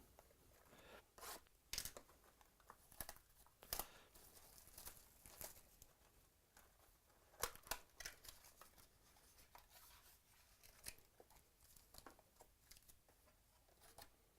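Faint tearing, crinkling and clicking of baseball card packs being opened and the cards handled, in scattered short rustles with a few sharper ones.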